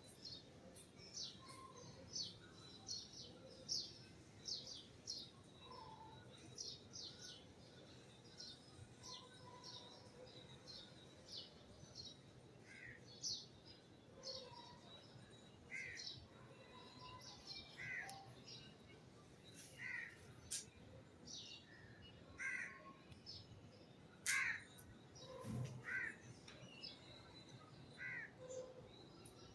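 Faint chirping of small birds, many quick high chirps. From a little under halfway through, a louder, lower call repeats about every two seconds.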